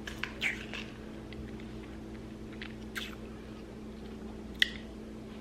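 Steady low electrical hum with scattered small clicks and brief rustles of handling, one sharper click about four and a half seconds in.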